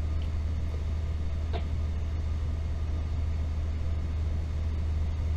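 Motor yacht's inboard engine running steadily under way, a low even drone heard from inside the wheelhouse, with one faint tick about one and a half seconds in.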